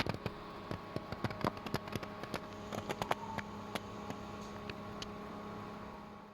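Steady electric hum of a small motor or fan, with many light, irregular clicks and taps over it; it fades out near the end.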